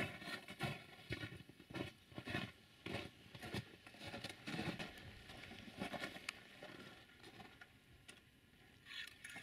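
Faint, irregular rustling and light taps from handling close to the microphone, as hands and camera move around the tractor.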